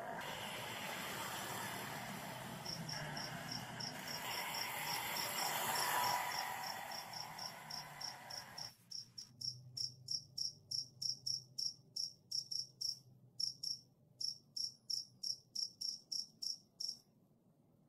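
A cricket chirping steadily, about three high chirps a second. For the first eight or nine seconds it sits over a steady rushing background noise, which cuts off suddenly and leaves the chirps alone.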